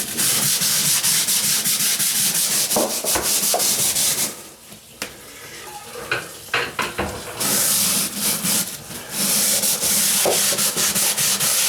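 A floor scrubber scrubbing a kitchen floor: long stretches of hard, rasping strokes, with a pause of about three seconds a little after four seconds in.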